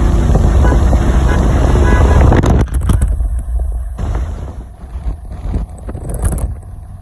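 Vehicle driving: engine and road noise, loud for the first two and a half seconds, then dropping off sharply to a quieter rumble.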